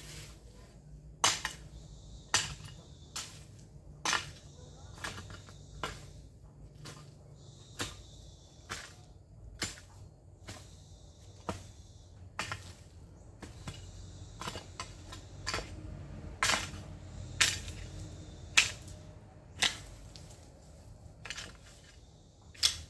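A long-handled garden hoe chopping into weedy ground, one sharp strike about every second at an uneven pace as weeds are cut out.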